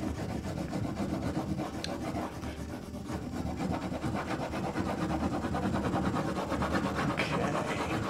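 Wax crayon pressed hard and scrubbed back and forth across drawing paper in shading strokes, a continuous scratchy rubbing that eases off a little just before the middle.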